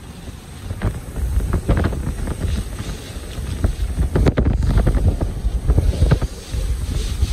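Hurricane eyewall wind gusting hard and buffeting the microphone in an irregular rumble, strengthening about a second in.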